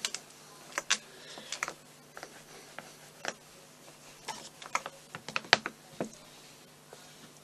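Scattered light clicks and taps of a plastic work board and hands as flower paste is pressed and smoothed down on it, with a sharper knock about five and a half seconds in as the board is shifted.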